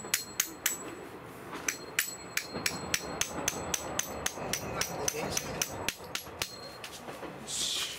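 A hammer tapping a metal tent peg into the ground through a tent's corner loop: quick light strikes about four a second, each with a faint metallic ring, pausing briefly about a second in. A short rustle near the end.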